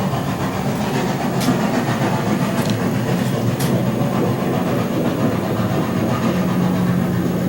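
HO scale model train running on the layout track: a steady low rumble with a few sharp clicks.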